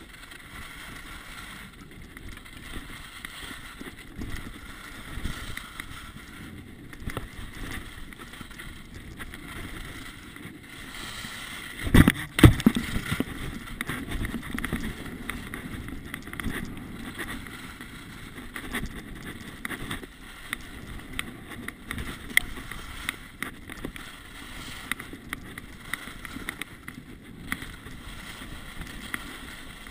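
Skis sliding and scraping over packed snow, with wind on a chest-mounted GoPro, while the skier runs downhill. A loud cluster of knocks comes about twelve seconds in.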